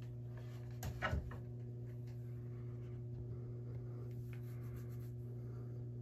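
A steady low hum with several even overtones, and a brief knock or rub about a second in.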